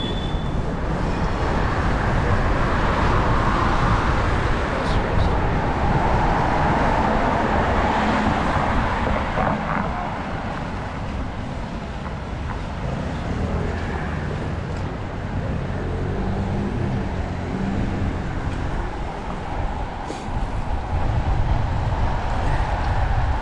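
City street traffic and road noise heard from a moving bicycle, with a heavy low rumble.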